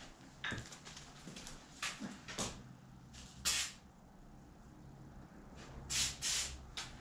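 Aerosol brake cleaner sprayed from a can onto the engine in several short hissing bursts: a brief one, a longer one about halfway, and two close together near the end.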